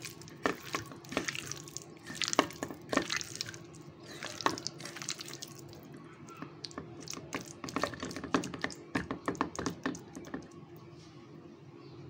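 Hand squeezing and mixing chicken pieces in a thick yogurt spice marinade in a steel bowl: irregular wet squelches and smacks, thinning out near the end. A faint steady hum sits behind them.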